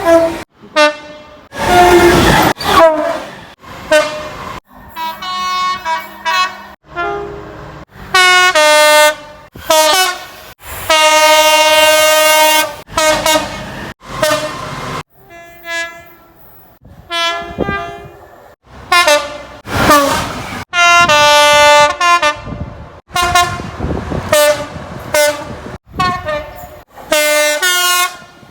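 Horns of British diesel locomotives and trains, many blasts one after another with abrupt cuts between them, some stepping between two or more pitches. The longest is one steady blast of about two seconds near the middle.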